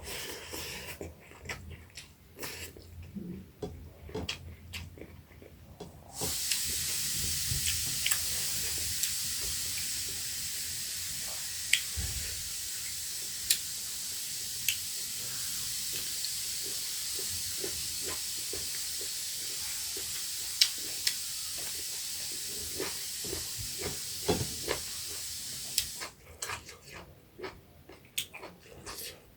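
Small fish frying in hot oil: a steady sizzle with scattered sharp pops. It starts abruptly about six seconds in and cuts off abruptly near the end. Before and after it come soft clicks and smacks of eating.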